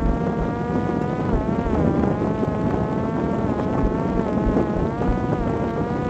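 Parrot Disco fixed-wing drone in flight: its electric motor and rear pusher propeller give a steady buzzing whine whose pitch wavers and dips slightly a few times, over a low rush of wind on the on-board microphone.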